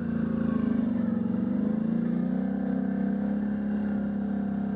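Can-Am Outlander ATV engine running steadily while riding a trail, its pitch rising and falling a little with the throttle.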